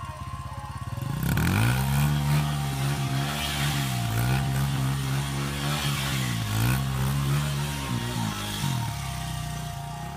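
Honda CRF dirt bike's four-stroke single-cylinder engine, ticking over low for about a second and then revved hard, the revs rising and dipping again and again as the bike spins donuts in the mud.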